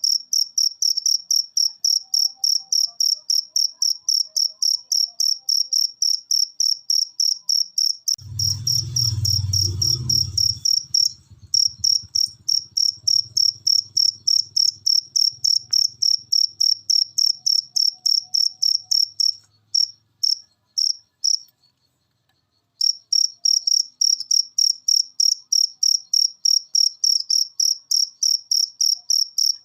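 Wild cricket chirping steadily in a fast, even rhythm of about four high-pitched chirps a second. A low rumble swells about a third of the way in, and the chirping falters and stops briefly about two-thirds through before starting again.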